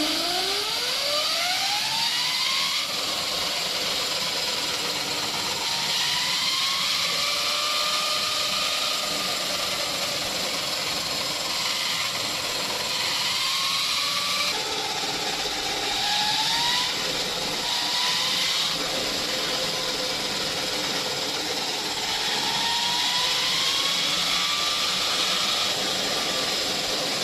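Electric motorcycle's drive motor whining as the rear wheel spins up off the ground: the pitch climbs steeply over the first few seconds, then rises and falls several times as the throttle is twisted, over a steady whirring of the spinning drive and wheel.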